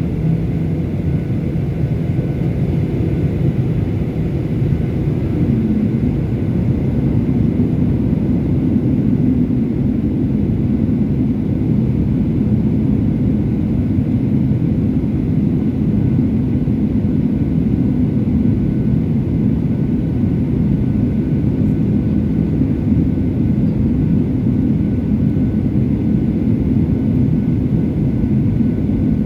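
Boeing 737-800 airliner's CFM56 engines and airflow as a steady low rumble inside the cabin on approach, with a faint steady whine above it and no change in level.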